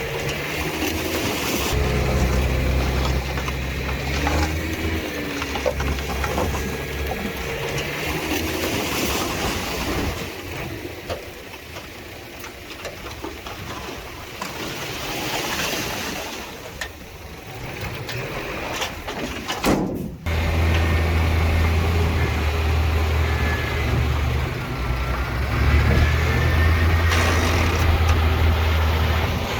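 Heavy earthmoving machinery's diesel engines running, the drone rising and falling in strength. It cuts off abruptly about two-thirds of the way through, and an engine is louder after that.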